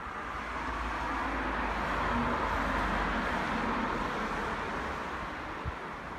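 A car passing on the road, its tyre noise swelling to a peak two to three seconds in and then fading away. A brief low thump near the end.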